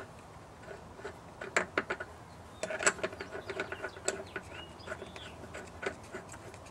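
Scattered clicks and light metallic knocks from handling a bearing puller: its left-hand nut is being run down the threaded rod through the washer drum's hub.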